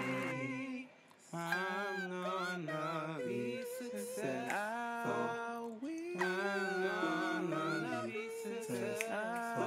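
A cappella vocal music: several voices singing in harmony, in phrases, with a short break about a second in.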